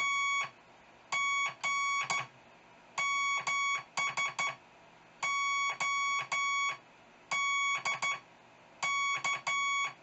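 Hand-keyed Morse code from a straight key driving a tone keyer: one steady beeping tone switched on and off in long and short elements, grouped into characters with pauses between them, spelling out a call sign. The tone is sent as modulated CW over 2 m FM from a Baofeng UV-5R.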